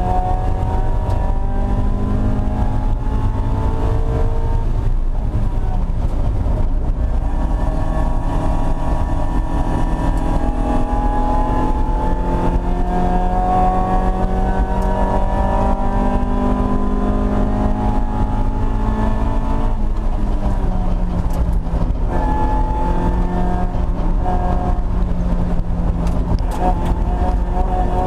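Mazda Miata race car's four-cylinder engine heard from inside the stripped cabin at full effort. The engine note climbs, dips briefly about five seconds in, climbs again and holds steady, then drops about twenty seconds in before rising again near the end, over a constant low rumble.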